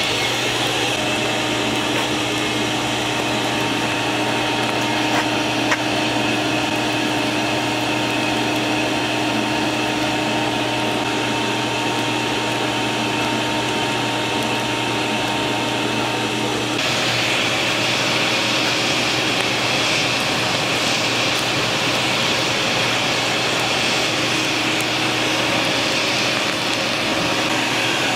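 Blacksmith forge being blown hard: a steady rush of forced air through the fire with a faint motor hum. About two-thirds of the way through the rush suddenly turns brighter and hissier.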